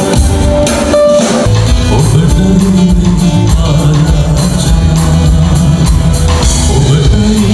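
A live band playing a song, with a male singer, drum kit, guitar and keyboards through the stage PA. The bass and drums come in strongly about a second and a half in.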